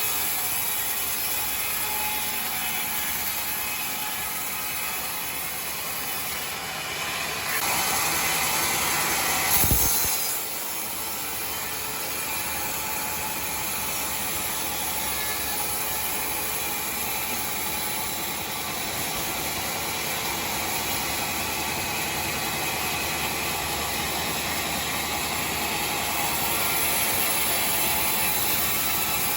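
Sawmill machinery running steadily while cutting timber. It grows louder about seven to eight seconds in and ends that stretch with a single sharp knock a little later.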